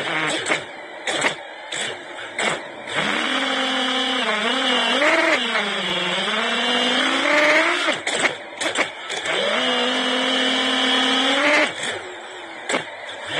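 FPV quadcopter's brushless motors and propellers whining as heard from its own onboard camera, the pitch gliding up and down with the throttle. Several short, sharp throttle punches come in the first few seconds and again around the middle and near the end.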